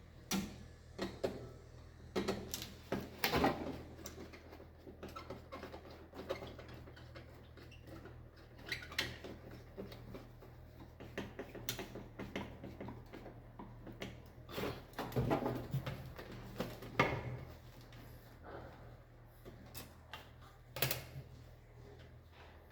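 Irregular clicks, taps and knocks of hand work on an electrical distribution board, as cable conductors are handled and fixed into its terminals, over a low steady hum.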